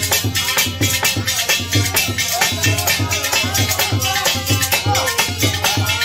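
Live Indian folk bhajan music: a dholak hand drum beats a fast, even rhythm of about three to four strokes a second under harmonium, with high rattling percussion throughout.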